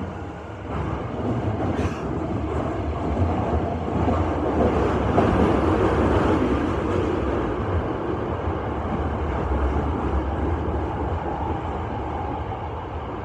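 Hankyu train running through a subway tunnel, heard from inside the front car: a steady rumble of wheels on rail that grows louder over the first five seconds or so, then eases a little.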